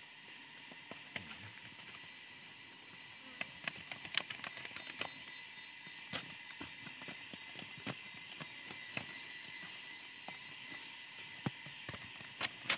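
Faint, irregular clicks and rustles of hands working with a knife among grass stems close to the microphone, over a steady high hiss.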